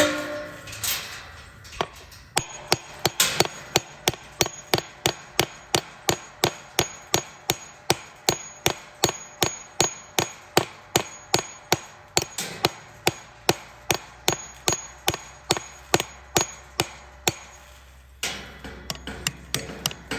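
Steady hammer blows, about two to three a second, driving a gate fitting into a drilled pilot hole that is snug on purpose so it grips. They stop briefly near the end, then start again.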